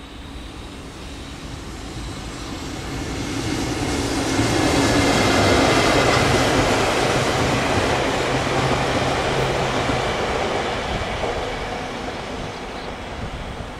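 A freight electric locomotive towing a rake of Seibu 2000 series electric commuter cars runs past on the line. The rolling rumble builds over about four seconds, peaks with a steady low hum, and then slowly fades as the towed cars roll by.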